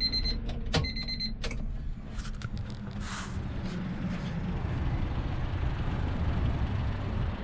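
Honda Civic's dashboard warning chime beeping in a regular on-off pattern, with a sharp click of the ignition key about three-quarters of a second in; the chime stops soon after as the ignition is switched on. After that, a steady low rumble slowly grows louder.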